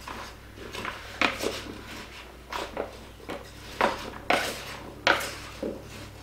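Wooden spoon stirring raw potato chunks with chopped onion and celery in a plastic mixing bowl. It makes irregular scrapes and knocks against the bowl, roughly one every half second to a second.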